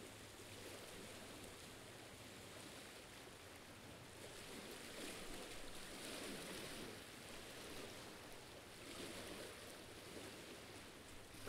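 Faint sea waves lapping against shoreline rock, coming in soft washes every few seconds.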